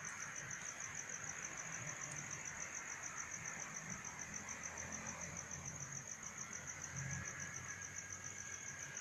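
Crickets chirping steadily: one continuous high-pitched trill made of rapid, even pulses.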